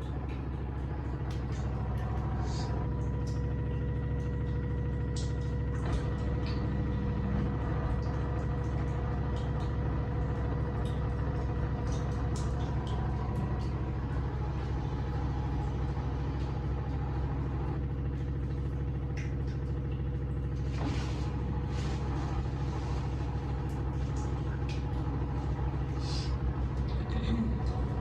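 LG fully automatic washing machine in its final spin-dry cycle, drum spinning steadily: a low hum with a faint whine held at a few fixed pitches and a few light clicks. The machine runs with very little noise and does not shake or walk.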